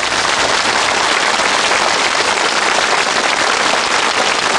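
Studio audience applauding steadily, a dense clatter of many hands clapping.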